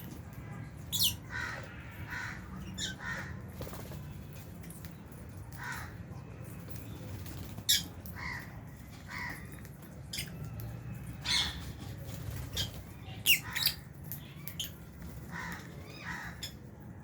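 Flock of captive lovebirds calling: irregular shrill chirps and squawks, some clustered, the loudest about eight and thirteen seconds in, over a low steady hum.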